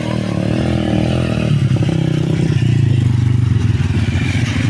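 Motorcycle engine running hard under a heavy load of timber. Its pitch drops about a second and a half in and then holds steady.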